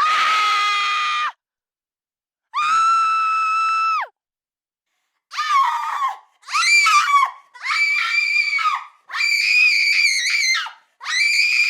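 A woman screaming in fright: a string of separate high-pitched screams, with silence between them. The first two are long and held steady. Five shorter, wavering screams follow in quicker succession and sit higher in pitch.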